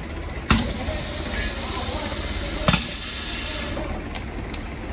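Twin-head pneumatic piston liquid filling machine cycling: a sharp clack about half a second in as the cylinders stroke, a hiss of water running into the bottles, then a second clack a couple of seconds later. A steady low hum runs underneath.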